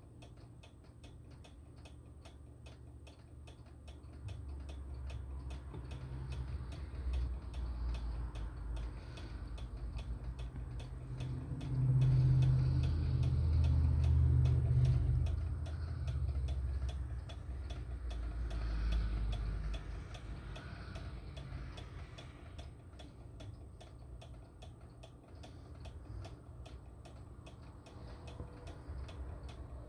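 Steady mechanical ticking throughout, under a low rumble that builds from about four seconds in, is loudest a little before the middle, and dies away about two-thirds of the way through.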